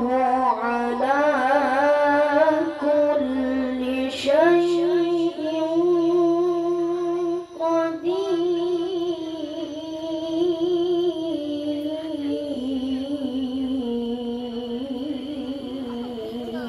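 A child qari reciting the Quran in the melodic tilawah style in a high voice, drawing out one long, ornamented melodic phrase. About four seconds in the voice slides up to a higher pitch and holds it, then eases back down later.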